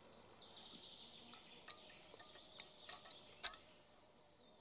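A few light clicks and knocks of a tin can being handled and set down on a small folding metal stove burning dry-fuel tablets. The loudest knock comes about three and a half seconds in. Under them is a faint steady high buzz.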